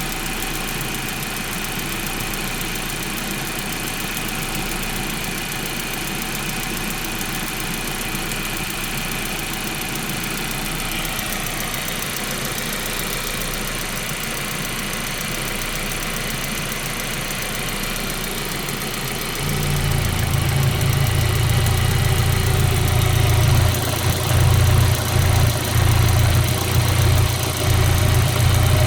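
Volkswagen/Audi 1.8T turbocharged four-cylinder engine idling with a fast, steady ticking, the noise being investigated. About two-thirds of the way in, a loud, uneven low rumble sets in and continues.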